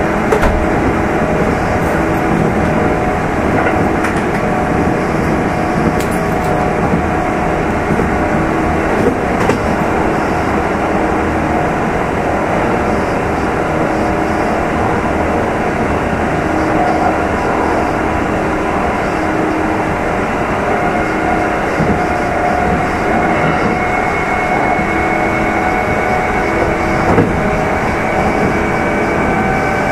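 Running sound of Kintetsu 2800 series motor car Mo 2813 heard from inside the car: steady rumble of wheels on rail with the traction motor's hum. A whine starts to rise slowly in pitch about two-thirds of the way in.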